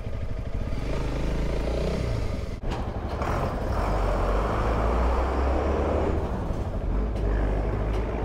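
Single-cylinder motorcycle engine running as the bike rides along a street. About two and a half seconds in it cuts to roadside traffic, with a larger vehicle's engine rumbling close by.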